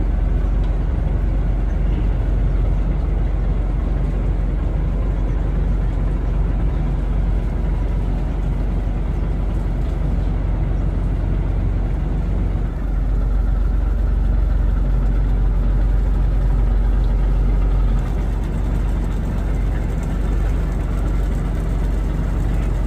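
Motorboat engine running steadily with a deep, loud rumble, easing slightly about three-quarters of the way through.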